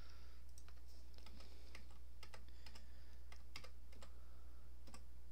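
Computer keyboard arrow keys tapped irregularly, a dozen or so light clicks, nudging a point into place a pixel at a time.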